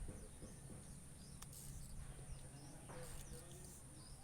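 Faint background sound with short high bird chirps scattered through it over a steady low hum, and a brief rustle about three seconds in.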